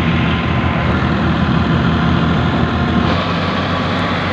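Tractor engine running steadily under load, driving a threshing machine through a shaft, with the thresher's drum rushing as dry berseem (Egyptian clover) is fed in for its seed. The sound shifts slightly about three seconds in.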